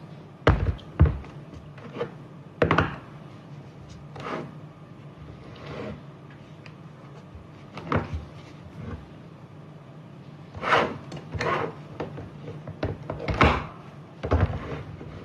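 Irregular knocks and clunks of a battery-powered hydraulic lug crimping tool and its 18V battery pack being handled, about a dozen hard-plastic and metal contacts at uneven intervals.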